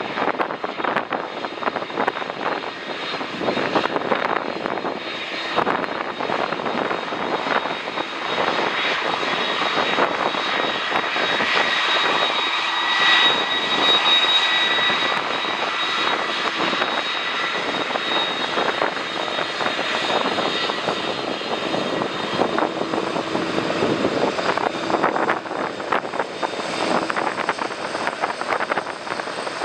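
Jet airliner engines with a steady rushing sound and a high whine that is strongest about halfway through, mixed with gusty wind buffeting the microphone.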